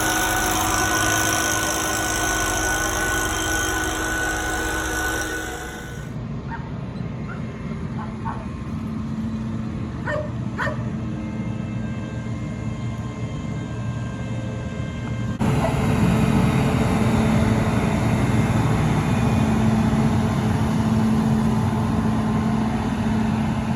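Farm machinery engine running steadily with a constant hum, in three stretches that change abruptly about six and fifteen seconds in. A few short high-pitched calls sound around ten seconds in.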